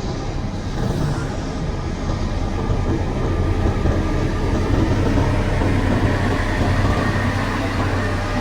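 Motor grader's diesel engine running steadily under load as a low rumble. It grows somewhat louder through the middle and eases a little near the end.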